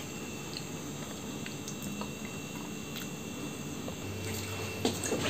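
Quiet room tone with a few faint scattered clicks and a low hum coming in about four seconds in, then a couple of soft knocks near the end.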